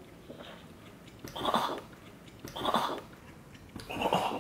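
Three short, noisy slurping sounds about a second apart, from people eating instant cup noodles and broth.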